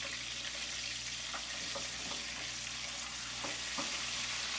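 A piece of hybrid striped bass frying in hot oil in a pan, a steady sizzle, with a few light clicks of metal tongs against the pan.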